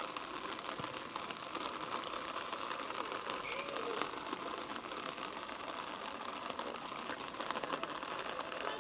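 Distant voices of rugby players calling and shouting across the pitch, faint under a steady outdoor background hiss.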